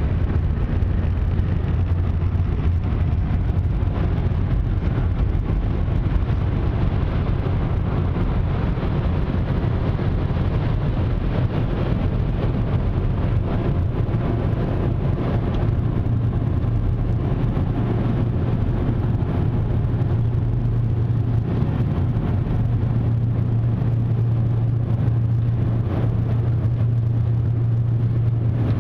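Ryko SoftGloss XS 2 car wash blower dryers running, a steady loud roar with a low hum, heard from inside the vehicle's cabin.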